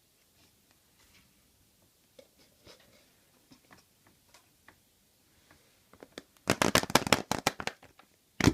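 Hands handling a surprise egg: light rustles and taps, then a loud burst of crinkling and tearing of its wrapper for about a second and a half, and one sharp crack near the end.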